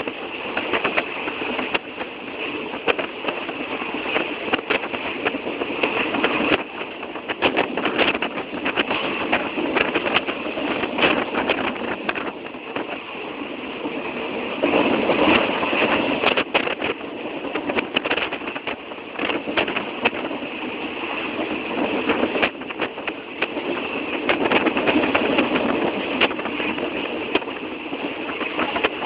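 A train in motion: steady running noise with frequent rattling clicks throughout.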